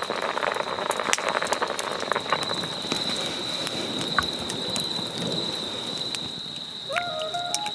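Dense irregular crackling and sizzling from cooking over a wood campfire, with a steady thin high-pitched tone behind it. Soft music notes come in near the end.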